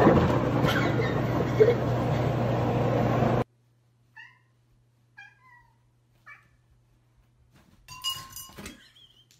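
A loud, steady noise with a low hum cuts off abruptly after about three seconds. Then a cat gives several short meows. Near the end comes a clatter with a brief ringing as the cat grabs a ceiling fan.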